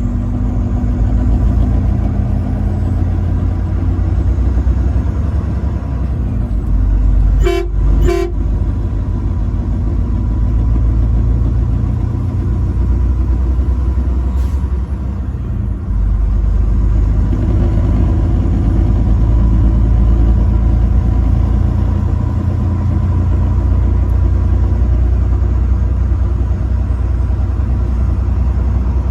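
Truck horn sounding two short blasts in quick succession about seven and a half seconds in, over the steady low rumble of the truck driving.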